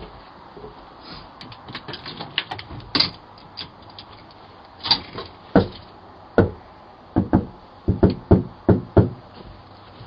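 Knocking on a front door, picked up by a doorbell camera's microphone: light scattered taps in the first few seconds, then louder knocks in quick groups of two and three in the second half.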